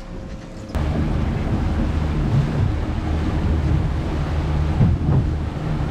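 Boat motor running with wind on the microphone and water rushing past the hull. The sound jumps suddenly louder under a second in and then stays steady.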